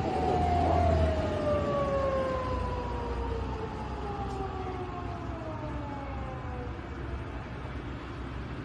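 Japanese police car siren wailing, its pitch falling slowly and growing fainter as the car drives away, over a steady low traffic rumble.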